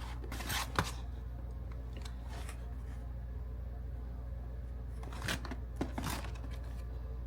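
Snack packaging being handled: a few short rustles and clicks, a pair about half a second in and another group around five to six seconds in, over a steady low hum.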